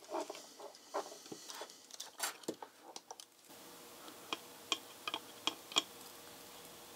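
Faint light clicks and taps of small parts being handled during soldering, then a few sharp separate ticks, two or three a second: a dog's nails clicking on a wood floor.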